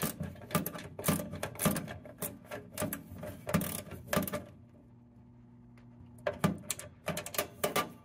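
Klein mini ratchet clicking in quick runs as it drives a small screw, with a pause of about two seconds past the middle before a second run of clicks.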